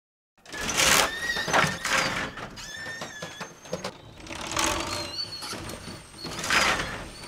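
Intro sound effects for an animated logo: four loud whooshes with short ringing, warbling tones between them, starting about half a second in.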